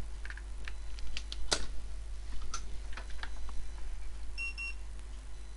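Scattered light clicks and taps of tools on a laptop motherboard as a soldering iron is brought to a small capacitor to unsolder it. Two short electronic beeps come about four and a half seconds in, over a steady mains hum.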